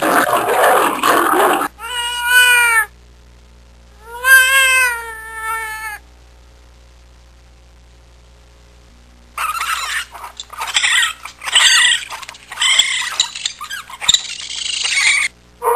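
Domestic cat meowing twice, each meow about a second long, rising then falling in pitch. A few seconds later comes a run of harsh, choppy, high-pitched animal calls, after a noisy sound that cuts off near the start.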